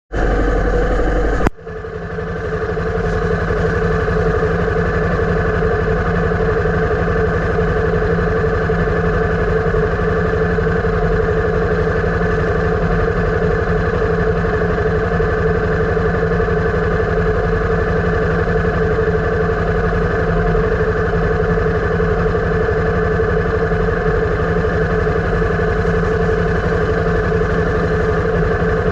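Motorcycle engine running steadily at an even pace, with a brief click and drop in level about a second and a half in.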